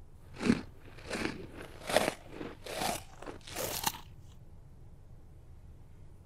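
A run of about six short crunching, rustling noises, roughly one every 0.8 s, that stop about four seconds in; the audio is played in reverse.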